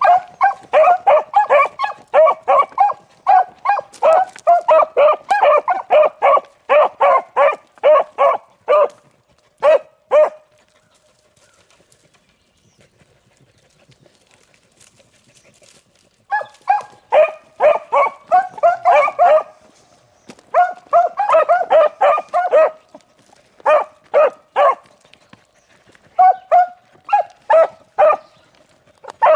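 Beagles baying in quick, repeated chop barks while running a rabbit's track: the sound of hounds on the scent. A dense run of barks lasts about ten seconds, then stops for about six seconds and starts again in several shorter bursts.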